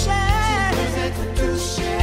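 Worship song: a singer draws out a wavering, held melody over instrumental accompaniment with a steady bass.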